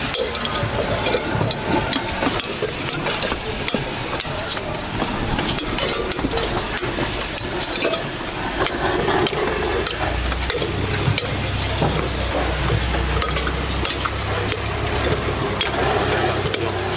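A steady crackling hiss dotted with many small clicks and clatters, with a low hum that comes in about ten seconds in.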